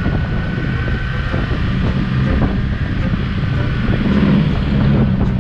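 Yamaha R15 motorcycle engine running steadily on the move, with wind noise on the microphone.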